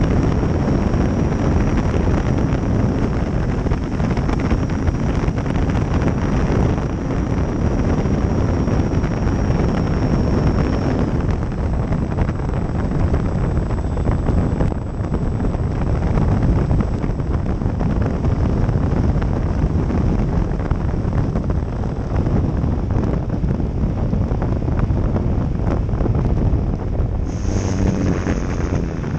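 Wind rushing over a camera on the nose of an E-flite Valiant 1.3m electric RC plane in flight, with a thin steady high whine that jumps higher about eleven seconds in. Near the end the sound changes as the plane comes down onto the runway.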